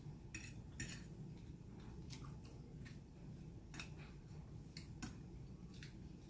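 Soft, irregular clicks of cutlery against a plate while eating, about half a dozen spread over a few seconds, over a low steady room hum.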